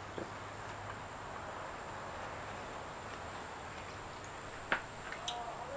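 A bar-end weight being unscrewed from a motorcycle handlebar: a small click just after the start and a sharper metallic click near the end, with a couple of faint ticks. Under them runs a steady hiss with a constant high-pitched tone.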